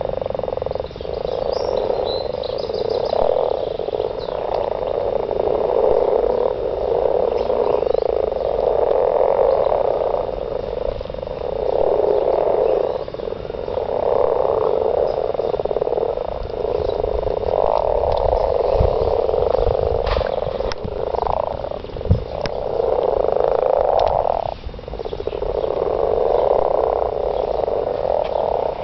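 A chorus of many frogs croaking together in a spawning pond, a dense continuous churring that swells and dips every second or two. A single dull thump sounds about two-thirds of the way through.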